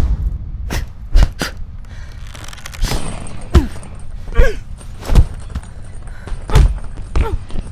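A series of about ten irregular heavy thuds and knocks at uneven intervals, a few of them trailing a short falling squeak or creak.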